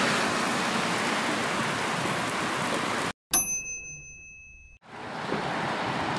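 Heavy downpour hissing steadily, cut off abruptly about three seconds in. In the silence a single bell-like ding rings for about a second and a half, then the rain fades back in.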